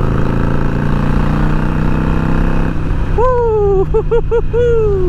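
Harley-Davidson Iron 883 Sportster's air-cooled 883 cc V-twin under throttle, accelerating to pass cars. About three seconds in the rider lets out a long, wavering 'woo!' over the engine.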